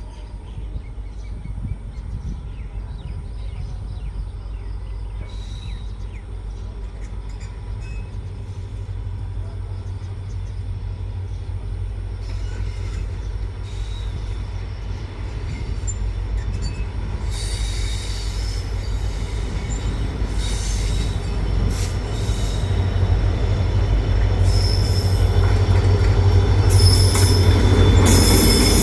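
EMD diesel locomotive's steady low hum as it draws closer with a container goods train, growing steadily louder. From about halfway through, high-pitched wheel squeals come and go and get more frequent toward the end.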